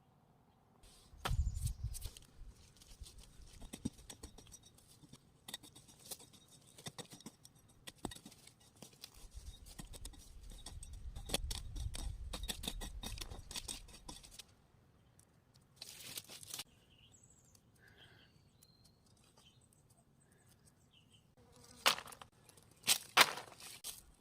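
Digging by hand in hillside soil: irregular scrapes, knocks and clicks of a digging tool and rustling of dry vegetation. Muffled low rumbles come about a second in and again from about nine to fourteen seconds.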